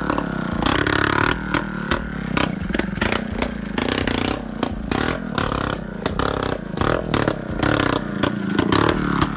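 150 cc scooter engine running loud through a 'dholki' drum exhaust fitted in place of the silencer, its speed rising and falling while it is ridden, with many short sharp cracks through it.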